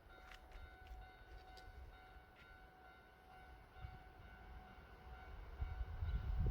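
Kintetsu Kyoto Line electric train running at a distance, a faint low rumble with thin steady high tones and a few light clicks, the rumble growing louder near the end as it comes closer.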